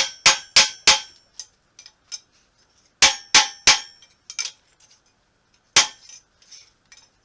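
A hammer beating a small steel plate cut from a mower deck flat, sharp ringing metal strikes about three a second: four blows, a pause of about two seconds, three more and a lighter one, then a single blow.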